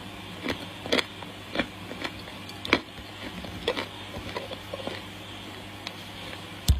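Dry edible clay being bitten and chewed close to the microphone: irregular sharp crunches about once or twice a second, with a louder thump near the end.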